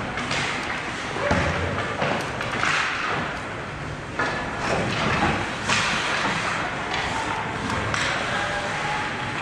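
Ice hockey play in a large arena rink near the goal: skate blades scraping the ice, with several sharp knocks and thuds from sticks and puck, echoing in the hall.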